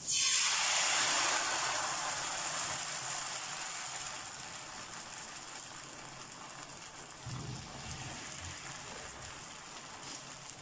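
Rice-and-vegetable paratha batter sizzling as it is poured into a hot frying pan greased with desi ghee. The sizzle starts suddenly and loudly, then slowly dies down while the batter is spread with a ladle.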